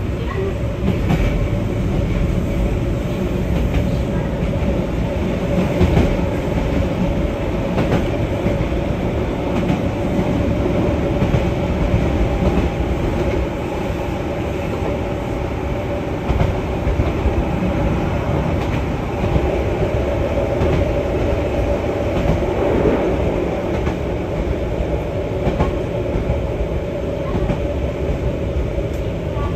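Keihan 600-series electric train running, heard from inside the front of the car: a steady rumble of wheels on rail with a constant hum and occasional clicks over rail joints.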